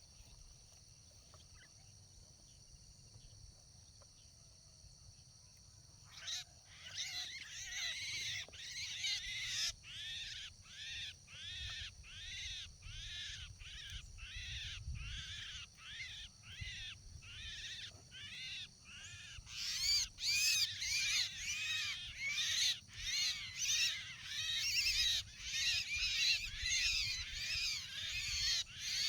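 A bird calling over and over in rapid, evenly spaced high notes, about two a second. The calls start about six seconds in and grow louder and quicker about two-thirds of the way through. Before they start there is a faint steady high whine.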